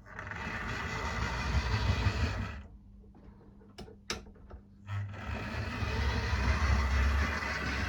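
Model GWR King Class locomotive's electric motor and gears whirring as it runs along the track, a bit loud; it stops about two and a half seconds in, a couple of clicks follow, and it starts running again about five seconds in. The noise is one the owner expects a service to quieten.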